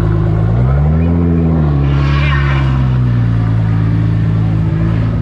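Car engine idling close by, revved once about a second in and settling back to a steady idle.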